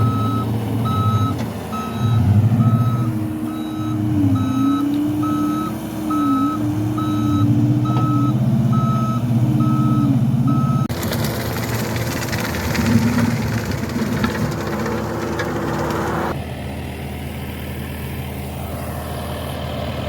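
A backup alarm beeps a bit faster than once a second over a heavy engine that revs up and down under load as a stuck truck is pulled free. About eleven seconds in the beeping stops and a loud harsh noise takes over for several seconds, then gives way to a steadier engine drone.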